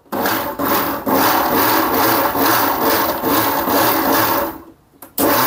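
Electric mixer grinder running with dry spice masala in its small steel jar: a loud churning grind that pulses about three times a second. It is switched off and spins down at about four and a half seconds, then starts again just before the end with a steady motor hum.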